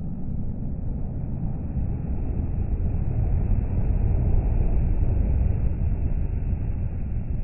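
DAF CF car-transporter lorry driving past close by on the motorway. It makes a low rumble of engine and tyres that swells to its loudest about four seconds in and then eases off.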